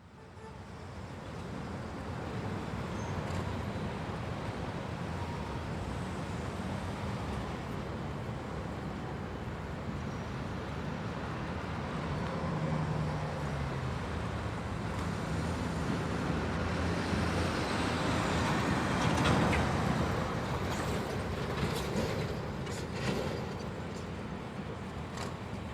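A steady vehicle rumble with road-like noise, swelling to its loudest about three-quarters of the way through, with a few sharp clicks near the end.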